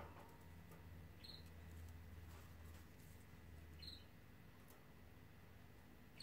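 Near silence: faint room tone with a low hum, broken by a brief high chirp every two and a half seconds or so.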